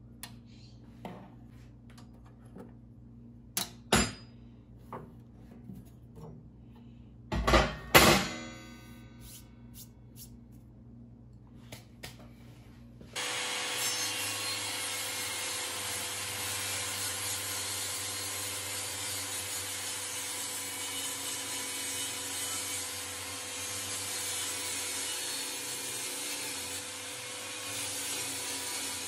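Parts being handled on a benchtop planer's metal bed: light clicks and knocks, with two loud clanks that ring briefly, about four and eight seconds in. From about thirteen seconds on, a table saw runs steadily as it rips a long sheet of particleboard.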